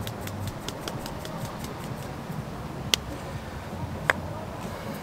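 Hand salt mill clicking as it is twisted over the potatoes; the run of quick clicks dies away within the first second. Later come two sharp knocks about a second apart.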